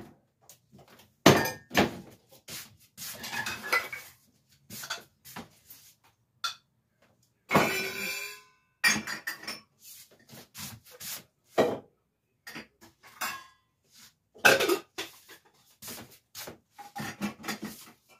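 Dishes and lids clinking and clattering at irregular intervals as they are handled and set down on a kitchen counter and in cabinets. About eight seconds in there is one louder clank that rings briefly.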